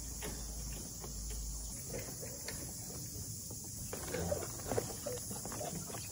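Footsteps on the wooden boards of a suspension walkway bridge, irregular knocks and creaks setting in about four seconds in, over a steady high hiss.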